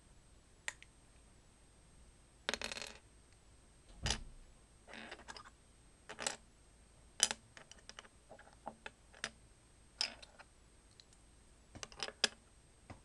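Plastic Lego bricks clicking and clattering as they are handled and set down on a wooden table: irregular sharp clicks, with a few longer scraping rustles among them.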